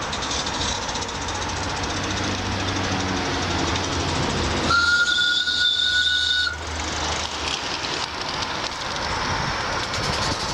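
Live-steam garden-railway model of a Vale of Rheidol locomotive running towards the camera with a steady hissing noise. About five seconds in its whistle sounds for nearly two seconds, a steady two-note tone and the loudest sound here.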